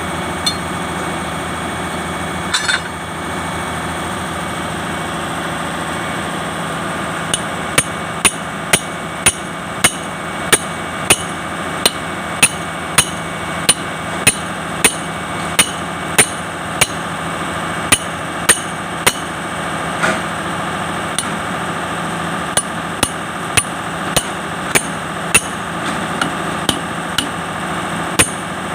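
Hammer blows on the steel track chain of an excavator being fitted: a long run of sharp, evenly spaced strikes, about one and a half a second, starting about a quarter of the way in and pausing briefly past the middle. A steady machine hum runs underneath.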